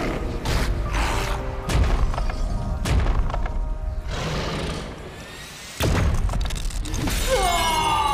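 Action-cartoon battle soundtrack: dramatic music with a run of heavy booming impacts about once a second, one big hit about six seconds in, then falling electronic zaps near the end.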